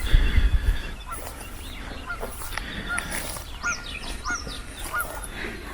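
Birds calling outdoors: a run of short, hooked calls repeated about every half-second to second, with a few higher, arching calls in the middle. A few low thumps sound at the very start.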